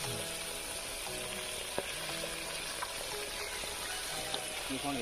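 Masala-coated tilapia pieces deep-frying in hot oil in an iron kadai: a steady sizzle, with a couple of light clicks.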